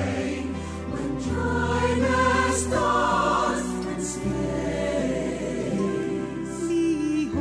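Church choir singing a hymn, with sustained low accompanying notes that change every second or so.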